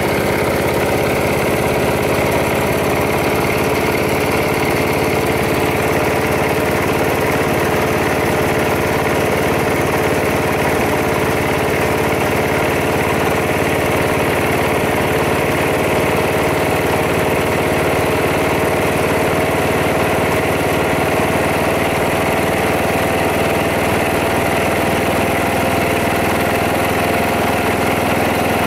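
Old 11 HP gas engine of a log splitter running steadily just after a cold start without choke, its pitch creeping slowly upward.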